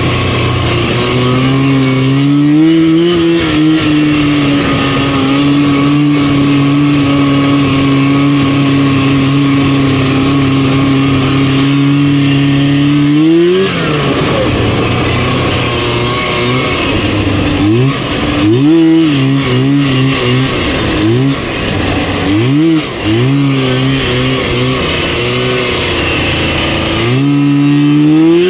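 Rotax 503 two-stroke twin engine of a Lynx snowmobile running at steady high revs for about twelve seconds, then rising sharply and dropping off. After that the revs rise and fall in a series of short throttle blips, climbing again near the end.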